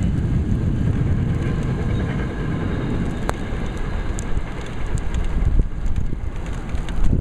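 Storm wind buffeting the microphone: a steady, uneven low rumble, with a single sharp click about three seconds in.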